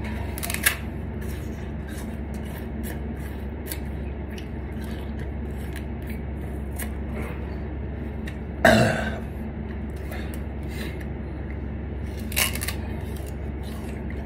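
Raw sugarcane being bitten and chewed, crunching and crackling as the fibres are crushed between the teeth to get the juice out. There is one louder burst about nine seconds in and smaller ones near the start and near the end, over a steady low hum.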